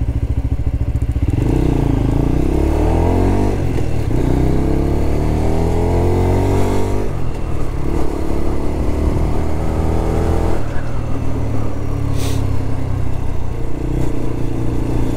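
Lexmoto LXR 125's 125cc single-cylinder engine pulling away and accelerating, its pitch climbing through the gears. The pitch drops at each upshift, about 7 and 10.5 seconds in, and it pulls up again near the end.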